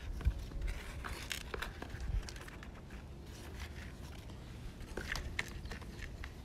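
Small metal hand trowel scraping and stirring through potting soil in a plastic pot, spreading granular fertilizer into it: soft gritty scrapes with a few light clicks.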